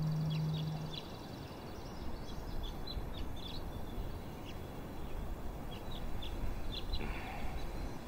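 Small birds chirping and twittering in short, scattered calls over a faint steady outdoor hiss. A low sustained musical note fades out about a second in.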